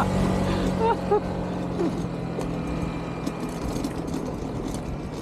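A motor vehicle's engine running with a steady low hum that fades away over the first couple of seconds, with a few short high squeaks about a second in.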